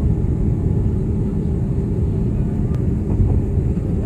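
Boeing 787-9 in flight, heard from a window seat over the wing: the engines and airflow make a steady, low rumble.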